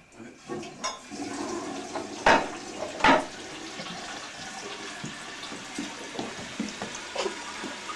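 A toilet being flushed: water rushing through the bowl, with two sharp knocks a little over two and about three seconds in. The toilet, earlier not flushing right, is shown flushing.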